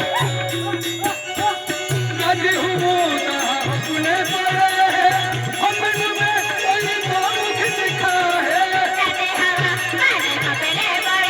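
Adivasi rodali folk music from a songadya band: a wavering, ornamented melody over a steady, repeating low drum beat.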